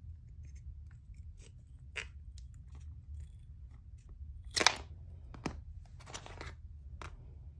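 Scissors cutting wooden popsicle sticks in half: a few sharp snaps as the blades crack through the wood, the loudest a little past halfway, with quieter clicks and a brief rustle between.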